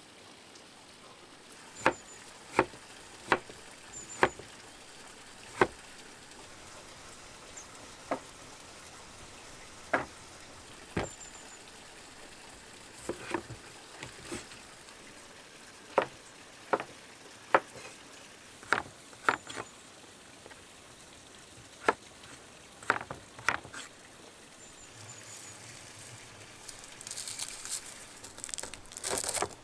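Knife strokes on a wooden cutting board: single sharp knocks at irregular intervals, sometimes two or three close together, as vegetables are sliced. Near the end comes a denser crackly rustle as a knife cuts into a hanging bunch of dry garlic bulbs.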